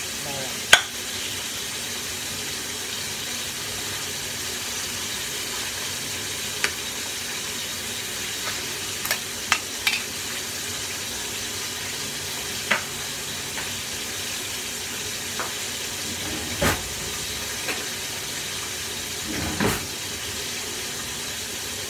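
Steady sizzling hiss of food frying in a pan on the stove. Scattered sharp clicks and knocks of plates and utensils being handled on the counter break through it, the loudest about a second in.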